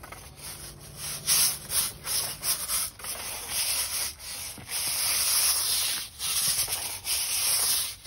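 Stiff bristles of a push broom scrubbing wet brick paving in repeated back-and-forth strokes, working lemon juice into the brick to lift mortar haze. The strokes come quickly at first and grow longer after a few seconds.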